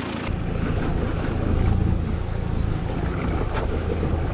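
Wind buffeting the microphone on a boat at sea: a steady low rumble, with a few faint clicks.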